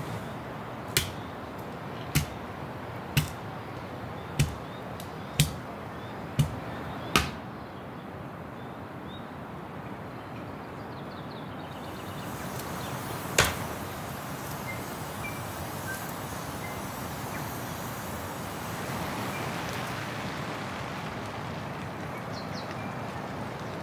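Campfire of burning sticks popping sharply about once a second, seven times, then once more after a pause, over a steady hiss.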